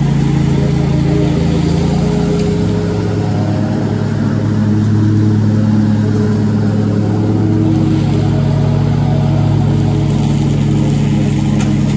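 Riding lawn mower engine running steadily close by, a loud low drone with only slight shifts in pitch as the mower drives past.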